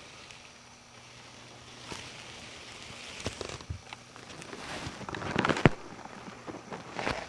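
A kitten pawing and batting at a camcorder lens cap right against the camera: scratchy rustling and small knocks on the camera body. It starts about two seconds in, builds to a flurry with one sharp knock past halfway, and there is another short scuffle near the end.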